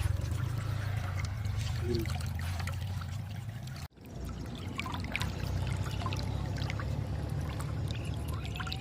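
Water pouring and trickling through a culvert, a steady rush with a low rumble that cuts out for a moment about four seconds in.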